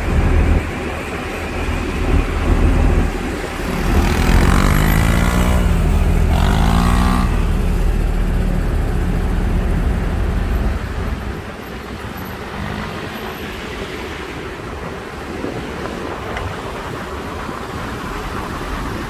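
Road traffic passing close by, with one motor vehicle's engine whose pitch drops and then climbs again about four to seven seconds in. The heavy low rumble eases after about eleven seconds.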